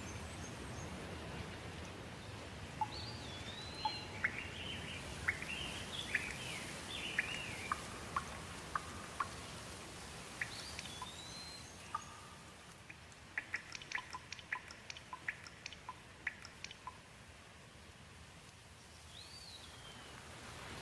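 Birds singing over steady rain: rising-and-falling whistled calls and runs of quick sharp chirps. The rain noise fades in the middle and swells back near the end.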